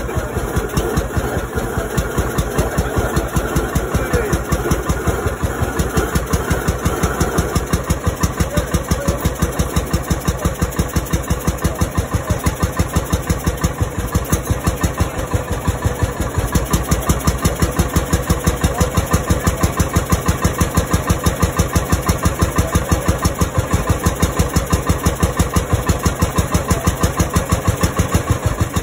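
The single-cylinder hot-bulb (bulb head) two-stroke diesel of a 1935 HSCS K40 tractor, 10.6 litres and low compression, runs slowly at idle with a steady, even beat of firing strokes. It gets a little louder about halfway through.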